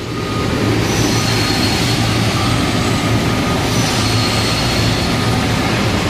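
Loud, steady machinery noise: an even rushing sound over a low hum, with faint high whistling tones.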